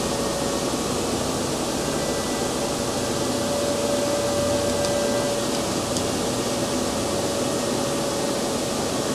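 Steady hiss and hum of a running appliance, with a faint steady tone through it and a few faint ticks.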